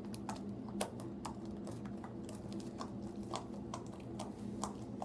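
Clear Elmer's glue slime, activated with borax, being kneaded and poked by hand, giving small irregular clicks and pops. A steady low hum runs underneath.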